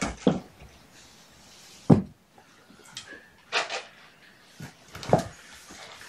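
A few separate dull thuds and knocks a second or two apart, the loudest about two seconds in, with a short rustle between them: things being handled and set down in a small room.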